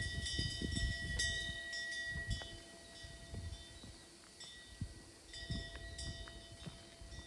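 Metal wind bell ringing with long, steady tones. Low thuds under it die down after about two and a half seconds.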